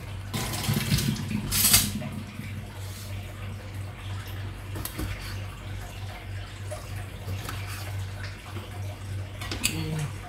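Water running from a kitchen tap into a sink while produce is washed, with light clinks of dishes and a sharp clatter about two seconds in, over a low steady hum.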